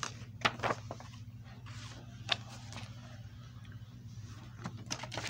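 Plastic DVD case and its paper insert being handled, giving a few sharp clicks and taps about half a second in, just after two seconds and near the end, over a steady low hum.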